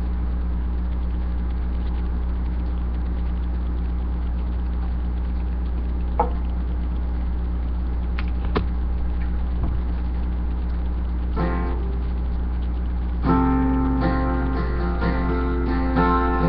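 Acoustic guitar being picked up, with a few knocks from handling, then strummed: a brief chord about eleven seconds in, and from about thirteen seconds steady strummed chords ringing. A steady low hum runs underneath.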